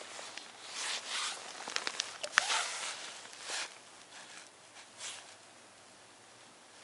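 Rustling of a padded winter jacket and crunching snow as someone moves and kneels, in several short swells, with a few sharp clicks about two seconds in.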